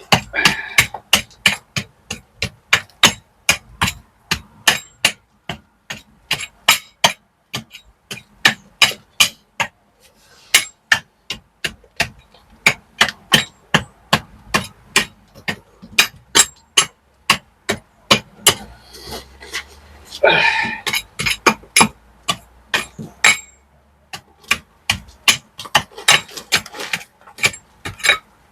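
Rapid hand-hammer blows, about three a second, knocking loose mortar out from around cobblestones, with brief pauses about ten seconds in and near the end.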